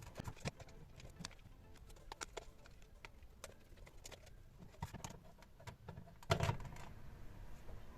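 Irregular small clicks and taps, with a louder clatter about six seconds in.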